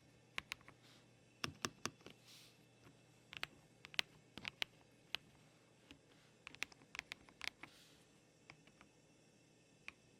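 Typing on a Redragon K708GG-Pro wireless mechanical keyboard: its keys clicking at an irregular pace, in quick clusters with short pauses, as a sound test of the keyboard.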